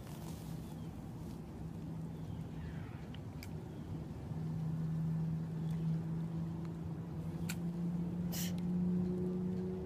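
A motor drones steadily in the background, growing louder and rising a little in pitch over the second half. A few sharp clicks sound over it, the longest about eight seconds in.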